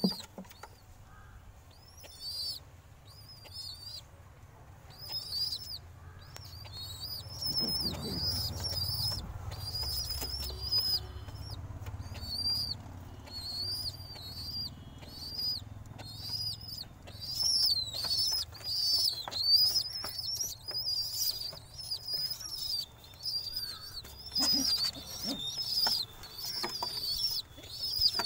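Pigeons in a wooden loft box: a brief burst of wing flapping at the start, then short, high squeaky calls repeating about once or twice a second, coming more often toward the end.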